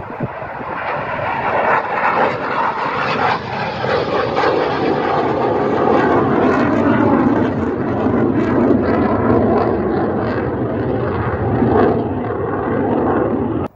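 Mikoyan MiG-29 twin-jet fighter taking off and climbing away, its jet engines making a loud roar. The roar builds over the first few seconds, stays loud, and cuts off suddenly near the end.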